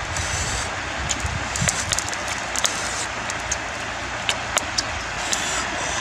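Whole fish grilling on a green-stick rack over embers: a steady hiss with sharp crackles and clicks scattered through it, as hands handle and turn the fish on the rack.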